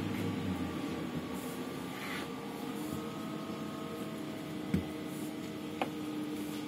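Onboard sound of a 1989 Ikarus-Ganz 280.94 trolleybus with Ganz electric drive: a steady electrical hum and whine with several held tones. A thump comes just under five seconds in and a sharp click about a second later.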